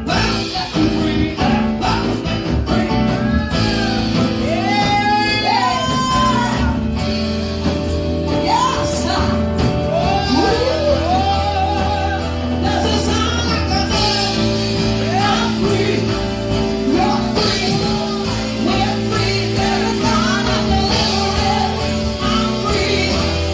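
Worship music: instruments holding sustained chords while voices sing long, sliding, improvised lines over them.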